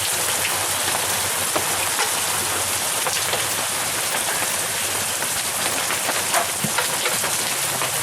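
Heavy rain pouring down with hail: a steady hiss dotted with small, scattered sharp ticks of drops and hailstones striking surfaces.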